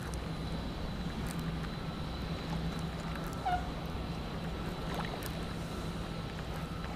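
Steady wind and water noise with a low, constant hum underneath, and one short bird call about halfway through.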